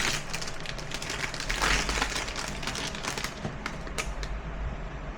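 Crinkling and rustling of a plastic wrapper as a blind-box toy figure is unwrapped by hand, an irregular run of small crackles.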